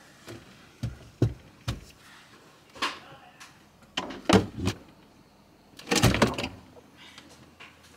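Refrigerator door and shelves being handled: a string of knocks and clunks as something is set inside and the door swings shut, with a louder clatter about six seconds in.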